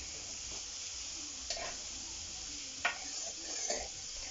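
Chopped onions frying in oil and butter in a karahi: a steady sizzle, while being stirred, with three sharp knocks of the stirring utensil against the pan.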